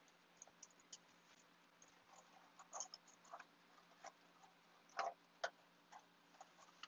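Faint scattered crackles and taps from hands handling a grapevine wreath and its metal sign, with two louder knocks about five seconds in, over a faint steady hum.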